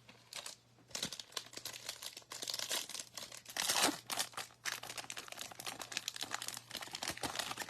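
Plastic wrapper of a trading card pack crinkling and tearing as it is opened, a dense run of crackles loudest a little past halfway.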